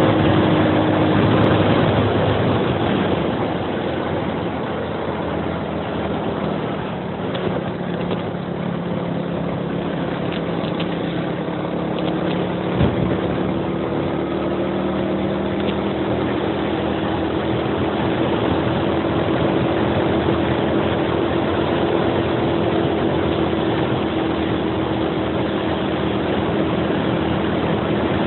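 Suzuki Axelo 125's single-cylinder four-stroke engine running steadily under way, pulling uphill, over wind and road noise. The engine note dips slightly in the first few seconds, then slowly rises again, and a single sharp knock comes about thirteen seconds in.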